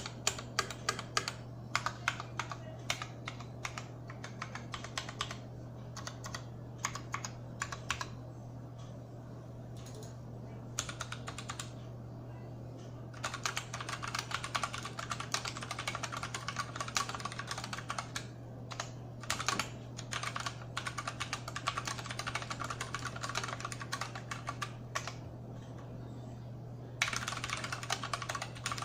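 Typing on an iKBC MF87 aluminium-case mechanical keyboard with unlubed Outemu Purple tactile switches and PBT DSA keycaps. Separate, unhurried keystrokes at first, then runs of fast typing from about halfway and again near the end, over a steady low hum.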